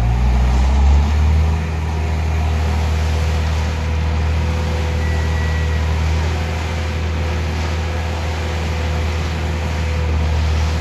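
Self-loading concrete mixer's diesel engine running steadily with a low drone.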